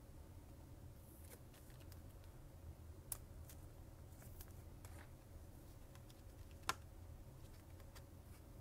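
Near silence: low room hum with faint clicks and ticks of a chrome trading card being handled in the fingers, two sharper clicks about three seconds in and near seven seconds.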